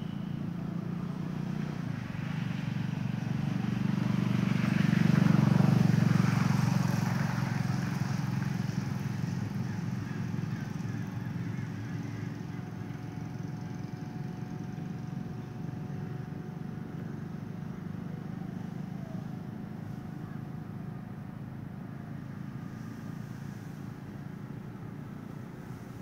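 Low rumble of a passing motor vehicle, swelling to its loudest about five seconds in and then slowly fading away.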